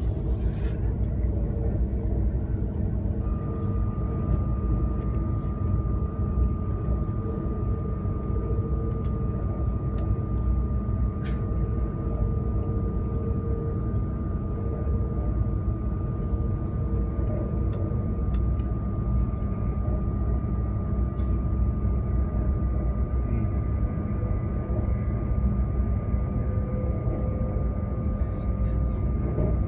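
Cabin noise of a CRH Harmony high-speed electric train running at speed: a steady low rumble, joined about three seconds in by a thin, steady high whine that holds.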